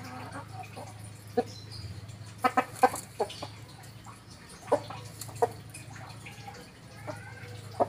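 Domestic chickens, a rooster with hens, clucking: short, separate clucks, a quick run of them about two and a half to three seconds in and a few more later.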